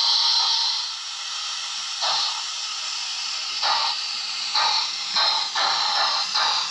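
Steam locomotive sound from a sound-fitted OO gauge model steam engine: a steady hiss of steam for about the first second, then separate exhaust chuffs that start slow and come quicker as the engine gets under way.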